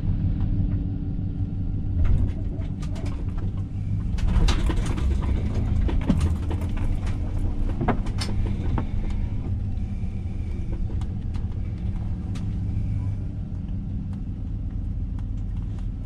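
Vehicle engine and road rumble heard from inside the cab while driving slowly, with scattered light clicks and knocks.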